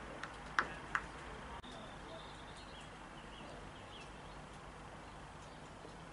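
A few sharp hand claps in the first second, then quiet open-air ambience with faint high bird chirps.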